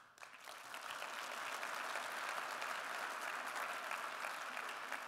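Audience applauding, building up within the first second, holding steady, then easing off near the end.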